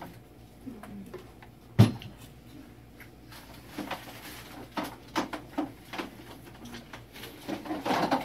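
Rummaging for a blender: scattered clicks, knocks and clatter of objects being moved and set down, as the blender jar and base come out onto the tabletop. One sharp, loud knock about two seconds in, and a run of quicker clatter near the end.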